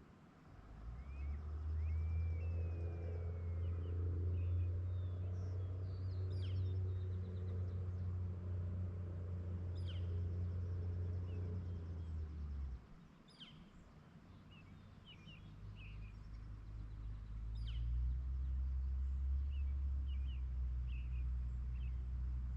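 Small birds chirping with short, sharp calls scattered throughout, over a loud low rumble. The rumble dips right at the start, cuts off suddenly about thirteen seconds in and builds back a few seconds later.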